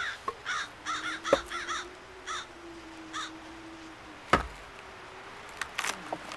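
Crows cawing in a quick series of short calls that stop a little over three seconds in. Two sharp knocks, the second and louder one past the four-second mark, and a faint steady low hum underneath.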